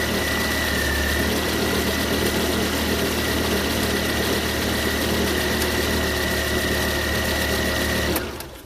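2015 Volvo XC60 T5's engine idling steadily shortly after a cold start, with a steady high whine over it. The sound cuts off abruptly near the end.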